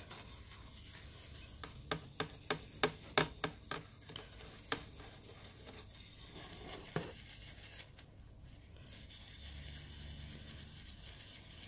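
Soft toothbrush scrubbing the brake-fluid-soaked plastic side of a model railway coach: a quick run of faint scrubbing strokes about two to four seconds in, then two more single strokes by about seven seconds in.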